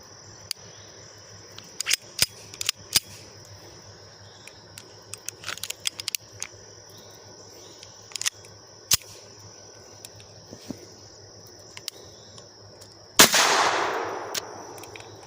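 Ruger SR22 pistol being handled after reassembly: scattered small metallic clicks, then near the end one loud sharp clack with a tail that fades over about two seconds, as the pistol's action is worked in a function check. A steady high cricket chirr runs underneath.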